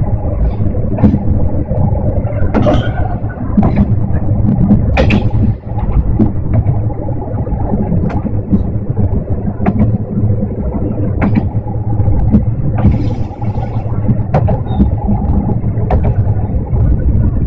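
Tarumi Railway diesel railcar running along the line, heard from inside the car: a steady, loud engine and running rumble, with scattered sharp clicks and knocks.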